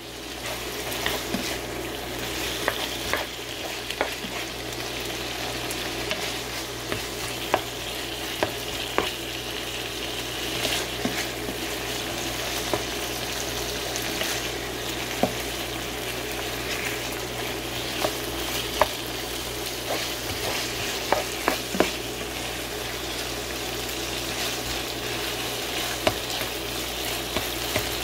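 Seasoned chicken thigh pieces and rice cakes sizzling and frying in a pan, stirred with a spatula. A steady sizzle runs under frequent sharp knocks and scrapes of the spatula against the pan.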